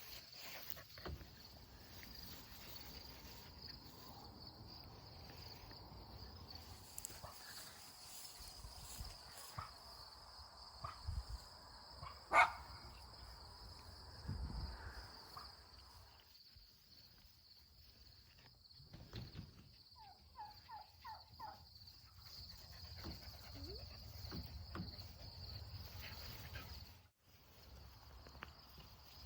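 Steady high-pitched drone of crickets or other insects, with scattered faint rustles and knocks, one sharp loud sound about twelve seconds in, and a quick run of about five short chirps around twenty seconds in.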